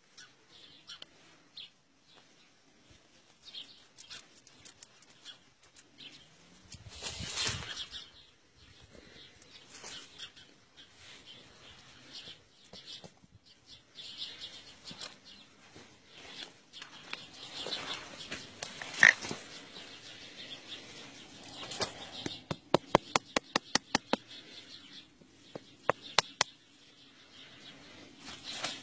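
Close handling sounds of hands grafting a young tree stem: rustling and scraping, with one sharp click about two-thirds through and soon after a quick run of about a dozen clicks, roughly four a second.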